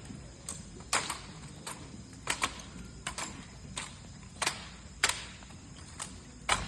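Sharp slaps and clacks of hands striking wooden drill rifles during a silent rifle drill routine, about a dozen separate hits in an uneven rhythm, sometimes two in quick succession.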